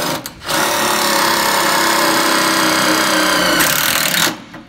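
Power drill driving a self-tapping screw: a brief burst, a short pause, then a steady run of about four seconds at constant motor pitch that stops shortly before the end.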